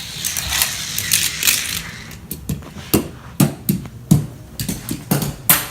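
Hot Wheels die-cast toy car running fast along a plastic track with a rushing whirr. It then clatters off the end and tumbles down wooden steps to the floor in a run of sharp clacks and knocks. The hardest knocks come about four seconds in and just before the end.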